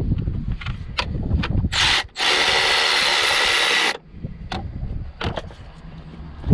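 Cordless electric ratchet running on a bolt: a short blip about two seconds in, then a steady motor whine lasting nearly two seconds. Knocks and rustling from handling the tool come before and after.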